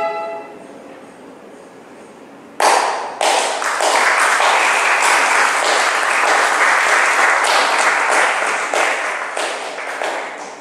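A violin's final note rings out and dies away. After a couple of seconds of quiet, an audience breaks into applause, which fades near the end.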